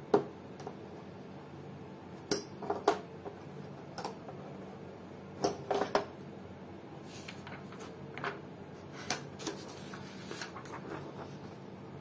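Metal binder clips being unclipped and laid down on a wooden board: a scattered series of sharp clicks and clinks, the loudest right at the start and a cluster about five and a half to six seconds in.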